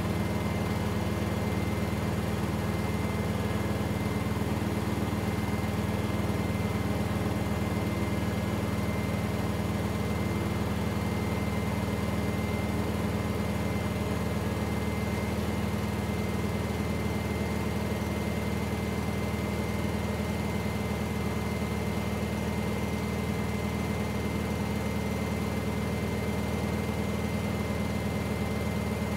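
Beko front-loading washing machine spinning at a steady speed: a constant low motor and drum hum with a thin steady whine above it, with no rise or fall.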